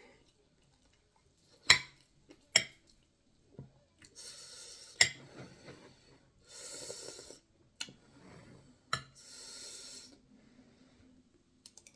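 Close-miked eating sounds: sharp clinks of cutlery on dishes, two in quick succession about two seconds in and more later, between longer noisy stretches of breathing and chewing.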